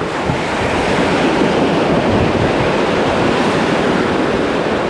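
Sea surf washing onto the shore, a steady rushing noise, with wind blowing on the microphone.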